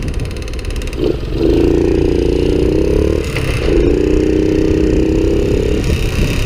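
Honda Cub's single-cylinder four-stroke engine running, with a low rumble throughout, twice raised to a higher, steadier note held for about two seconds. It is the abnormal engine noise that has been growing louder, which the owner suspects may be the cam chain.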